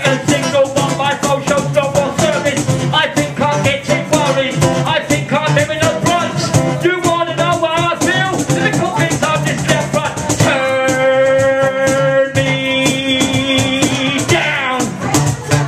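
Live rap vocal into a microphone over an electric guitar, with a fast rattling shaker-like rhythm. About ten seconds in the voice switches to long held sung notes, stepping up in pitch partway, before the rapid delivery returns near the end.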